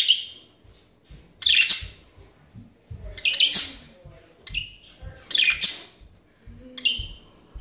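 Pet budgerigars chirping at close range: short, harsh calls about once a second.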